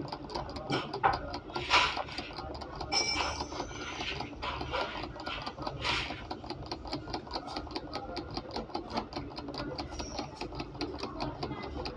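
Rapid, even mechanical ticking, about five ticks a second, over a low steady hum. A few louder scraping strokes, near the start and about halfway, come from scrubbing carbon off a circuit-board connector.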